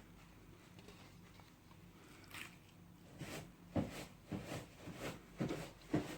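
Homemade slime squishing and squelching as it is squeezed and pulled in the hands: a run of soft, short squishes about twice a second, starting a couple of seconds in and getting louder toward the end.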